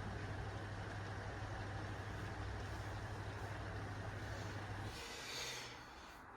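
A steady low mechanical hum, like an engine idling, stops abruptly about five seconds in. A short rustle follows.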